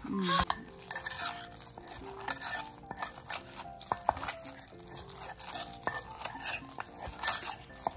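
Wooden pestle pounding and mashing a chunky quail and pickled bamboo shoot paste in a mortar, in irregular dull knocks, with a metal spoon scraping and clinking against the mortar's side. Soft background music plays underneath.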